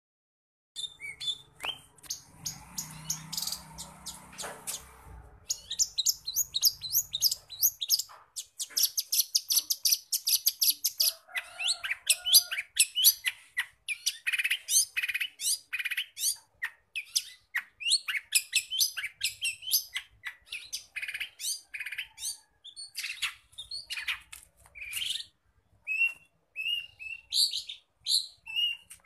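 Long-tailed shrike (cendet) singing continuously: a loud, rapid chatter of quick, high notes, with very fast runs of repeated notes, the shrike's mimicry-filled song.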